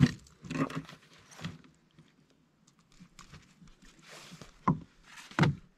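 A freshly netted largemouth bass being handled in a canoe: a few brief rustles and splashes, then a lull, then two sharp knocks near the end.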